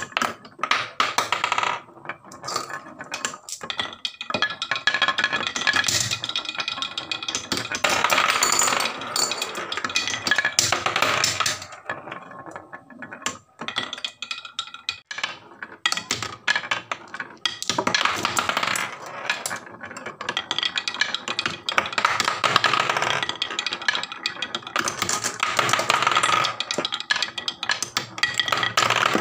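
Glass marbles rolling and clattering down a wooden HABA marble run, a stream of clicks and knocks as they hit and drop through the wooden blocks and slopes. The clatter comes in busy stretches with a thinner lull midway.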